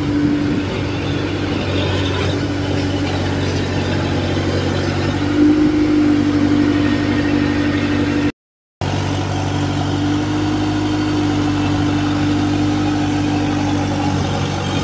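Kubota DC-105X rice combine harvester's diesel engine and machinery running steadily at close range, with a steady hum that grows louder about five seconds in. The sound drops out for a moment a little past halfway.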